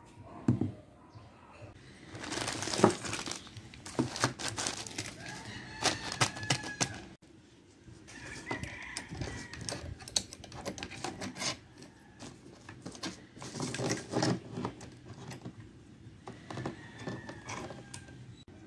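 Irregular metallic clicks, rattles and knocks as a DeWalt DW5200 chainsaw's loose saw chain and guide bar are handled and the chain is fitted around the drive sprocket and onto the bar.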